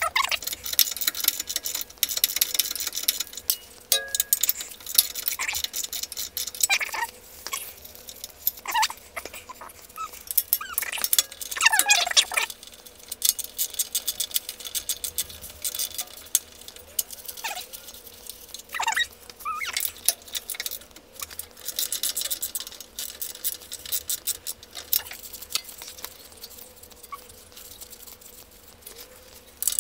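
Socket ratchet clicking in quick runs as it backs off the axle retaining nuts, with short pauses between strokes.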